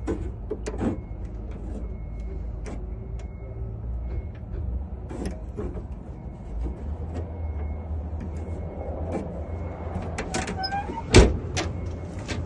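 Truck compartment door latch and lock being worked by hand: scattered metallic clicks and clacks, a brief squeak, and one loud thump a little after eleven seconds in, over a low steady rumble.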